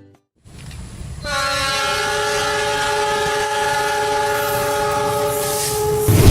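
A train's air horn blows one long, steady chord-like blast of several tones, starting about a second in and stopping near the end, over the rumble of the moving train.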